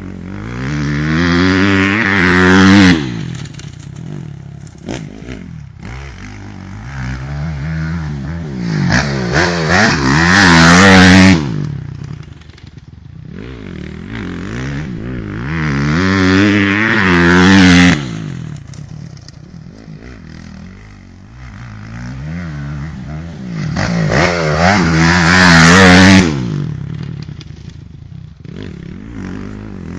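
Honda 250cc four-stroke motocross bike revving hard, its pitch rising to four loud peaks about every seven to eight seconds. Each time the sound cuts off sharply, then the engine runs on more quietly before building again.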